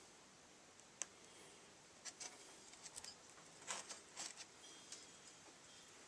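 Faint, scattered clicks and light knocks of strut assembly parts being handled and fitted back together, over near silence.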